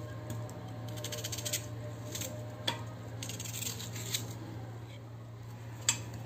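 Kitchen knife slicing through an onion held in the hand, the rings dropping into a stainless steel pan: soft crisp cuts and light taps, with a sharper metal clink near the end, over a faint steady low hum.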